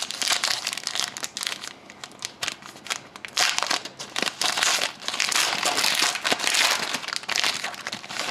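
Crinkling of a hockey card pack's wrapper, handled and torn open in a run of crackles that swell louder twice midway.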